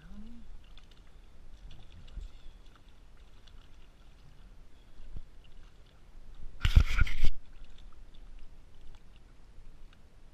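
Brief burst of splashing, about two-thirds of a second long and about two-thirds of the way through, as a small trout is grabbed by hand at the water's surface.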